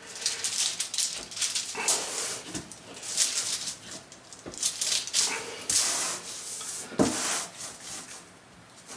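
Irregular rubbing and scraping as a freshly cast polyurethane elastomer part is worked out of its mould by hand, with a sharp click about seven seconds in.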